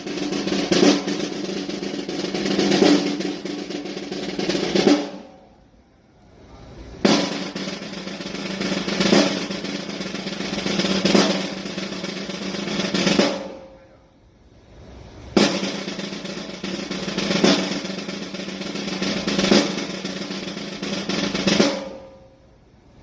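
Snare drum rolls in three stretches of about six seconds each, with a sharp accent about every two seconds, broken by short pauses.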